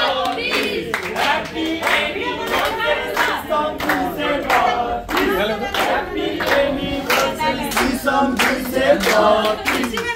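A group of people singing together while clapping in rhythm, about two to three claps a second.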